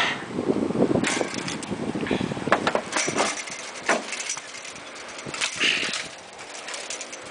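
Keys jangling, with metal clicks and rattles from padlocks and a gate being unlocked.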